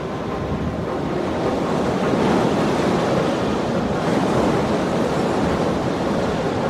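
Steady rushing of wind and surf, swelling slightly about two seconds in.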